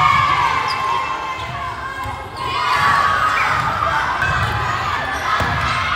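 Girls' volleyball players and spectators shouting and cheering in an echoing gym as the set-winning point is scored, the voices swelling after about two seconds, with a sharp knock of the ball near the end.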